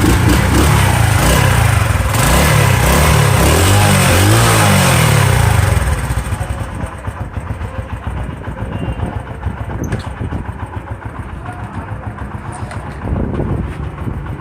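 Honda CD 70's small single-cylinder four-stroke engine running through its stock silencer: revved up and down repeatedly for about six seconds, then settling to a pulsing idle.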